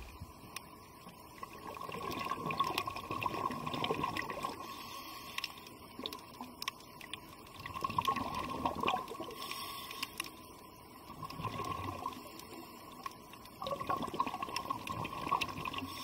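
Underwater sound picked up by a submerged camera: water moving and bubbling around it in four swells a few seconds apart, over a faint steady tone, with scattered sharp clicks.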